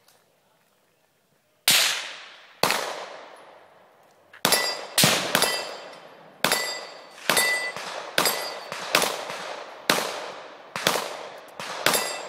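Handgun shots fired in quick strings at steel plate targets, about fifteen in all, starting a little under two seconds in. Several shots are followed by a short metallic ring of steel being hit.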